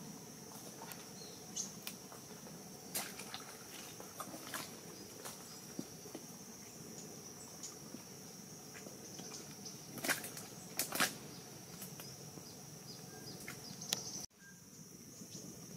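Scattered crackles and rustles as someone steps through dry mangrove twigs and mud, with a few sharper snaps about ten and eleven seconds in, over a steady high insect drone. The sound drops out abruptly near the end.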